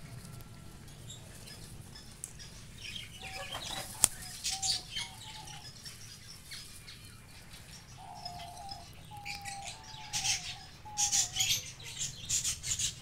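Birds in an aviary: a couple of drawn-out, wavering calls, a sharp click about four seconds in, then flurries of wing flapping in the last few seconds.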